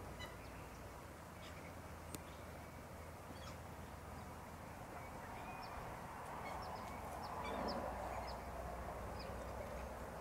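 A flock of hens clucking as they walk along together, with scattered short high peeps; the clucking grows louder about two-thirds of the way in.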